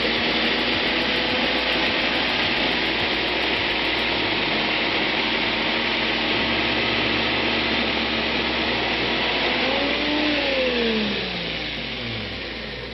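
Ryobi 40V brushless cordless chainsaw running with its chain in a log, a steady high whirring hiss. About ten seconds in the motor's pitch falls and the sound fades as the chain spins down.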